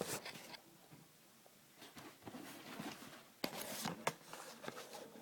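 Faint rustling and handling of a cardboard shoebox, with two sharp taps or clicks about three and a half and four seconds in.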